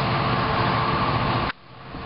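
NJ Transit ALP-45DP dual-mode locomotive's diesel engines running steadily as it pulls a commuter train away. About a second and a half in the sound cuts out abruptly, then slowly comes back.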